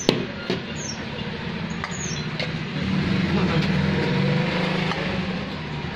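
Steel ladle clinking against steel bowls and a large steel pot as broth is served, with one sharp clink at the very start and a few lighter ones after. Under it a low engine hum from passing traffic swells in the middle.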